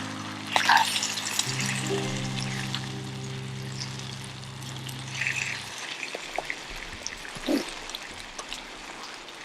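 Food sizzling and frying in a pan, an even hiss with scattered small pops and crackles, under soft background music that stops a little past halfway.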